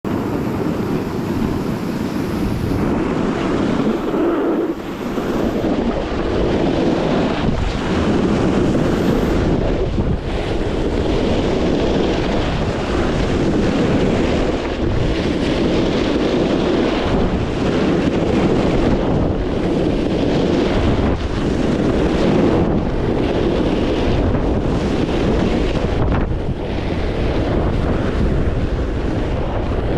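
Wind buffeting the microphone of a camera moving fast down a ski slope: a steady rushing that swells and dips, mixed with the hiss of snow underfoot.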